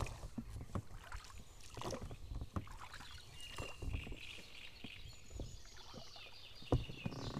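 Small boat being rowed: the oars dip in the water and knock irregularly in their oarlocks.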